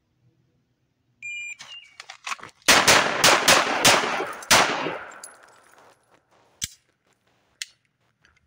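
A shot-timer beep, then an HK P2000 9mm pistol fired from the hip: six shots in under two seconds, in quick pairs with the last after a slightly longer pause, each ringing out. Two faint sharp clicks follow a few seconds later.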